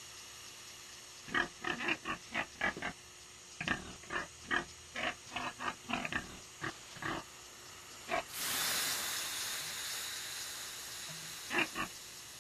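A pig grunting in a quick run of short grunts for about six seconds. A sudden hiss of steam follows, as from water ladled onto hot sauna stones, and fades over a few seconds, then two more short grunts near the end.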